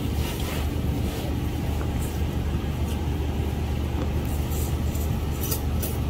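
A steady low motor hum, with short faint clicks over it.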